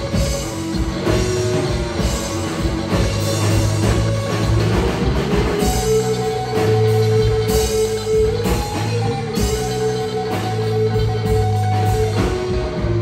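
Live blues band playing: an electric guitar solo on a Stratocaster-style guitar over drum kit and electric bass, with no singing. About halfway through, the guitar bends up into a long held note with vibrato that rings for several seconds.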